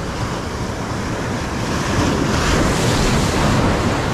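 Ocean surf breaking and washing up over the sand in the shallows, a steady rush of water that swells louder about halfway through as a wave comes in.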